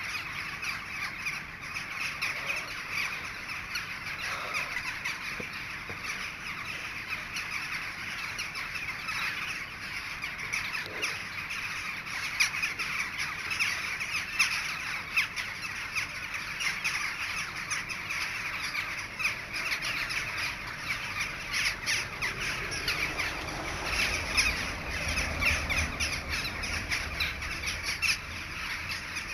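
A large flock of crows calling continuously overhead, many cawing calls overlapping at once.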